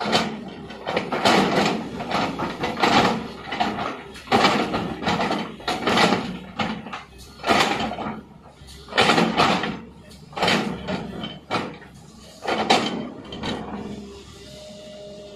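Tata Hitachi excavator's bucket scraping and grinding through stony soil in a well pit, in rough uneven bursts about once a second. A faint steady tone comes in near the end.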